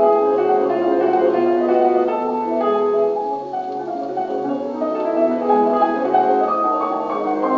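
Solo piano recording played back through an HMV 163 cabinet gramophone: a flowing run of piano notes with little deep bass.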